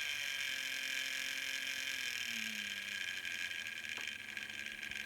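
Fleischmann BR 140 model locomotive's motor and gears whirring with a steady hum. One tone drops in pitch about two seconds in as it slows, and there is a single click about four seconds in.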